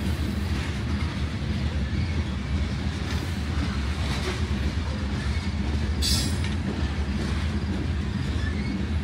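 Loaded CSX covered hopper cars rolling slowly past, a steady low rumble of steel wheels on rail. About six seconds in, a short high-pitched screech, typical of wheel flange squeal.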